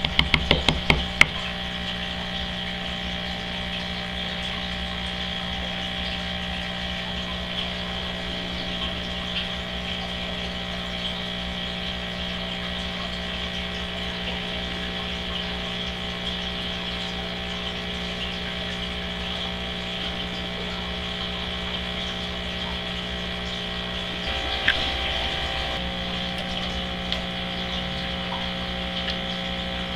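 Steady hum of aquarium pumps with running water, holding a few fixed tones. A few sharp ticks come in the first second or so, and the hum shifts slightly with a click about 24 seconds in.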